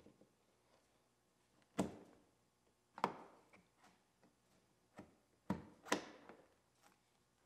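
Exterior door handle of a 2015 Chevrolet Silverado being fitted into the door: a few sharp clicks and knocks as it is slid in and clipped into place. The loudest come about two and three seconds in, then a pair close together near six seconds.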